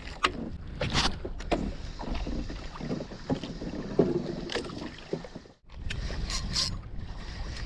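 Wind on the microphone and water around a small outrigger boat, with scattered knocks. In the last couple of seconds a Penn Battle II spinning reel is cranked, its turning clicking.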